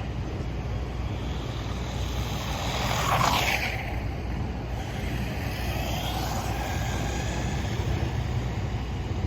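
Brushless electric motor of a 1/16-scale RC jeep whining as the truck accelerates. The whine rises in pitch and is loudest about three seconds in, with a fainter whine around six seconds, over a steady low rumble.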